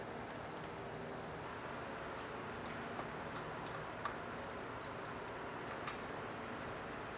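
Small steel bolts and a wrench clicking lightly and irregularly against the valve cover and aluminium cylinder head as the bolts are threaded back in by hand. The clicks are scattered, a dozen or so, over a steady low hum in the background.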